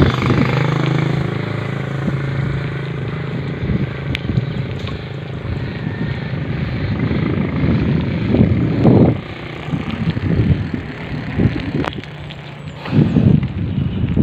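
Wind rushing and buffeting the microphone while riding a bicycle, with a motor vehicle's engine droning steadily in the first few seconds. Louder gusts come about eight and a half seconds in and again near the end.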